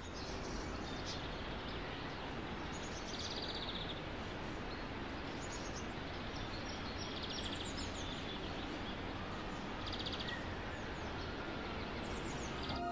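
Several birds chirping, with a few short trills now and then, over a steady outdoor background noise.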